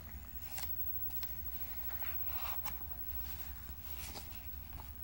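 Paper pages of a service folder being handled and turned: soft, irregular rustles and crinkles a few times, over a steady low hum.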